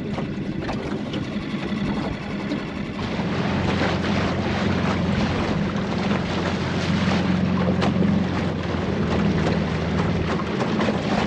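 Small outboard motor running steadily on an aluminium boat underway, growing louder about three seconds in, with wind on the microphone.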